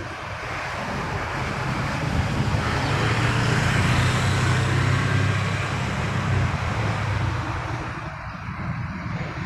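Diesel engine of a Massey Ferguson backhoe loader running. It grows louder over the first few seconds and eases off slightly near the end.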